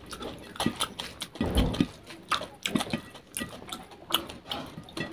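Close-miked wet eating sounds: open-mouthed chewing and lip-smacking, with fingers squishing curry-soaked rice against a plate, making a rapid irregular run of sticky clicks. There is a heavier dull thud about one and a half seconds in.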